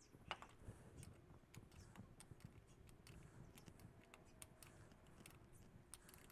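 Faint, scattered small clicks and ticks of metal parts and a small hand tool being handled while the points and condenser are fitted into a Ford tractor distributor, with one sharper click near the start.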